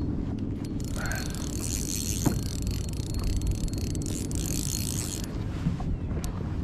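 Spinning fishing reel being cranked steadily while playing a hooked fish, a continuous mechanical winding noise.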